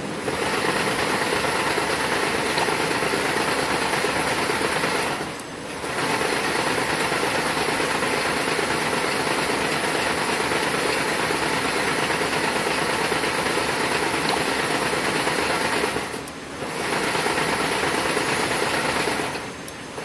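Wire-harness braiding machine running, its bobbin carriers making a steady, dense mechanical clatter. It starts up at once, dips briefly twice, at about five and sixteen seconds, and stops near the end.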